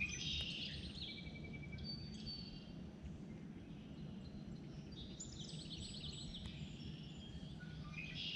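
Songbirds singing, with rapid trilled phrases in the first second and again about five seconds in and shorter whistled notes between, over a steady low outdoor background rumble.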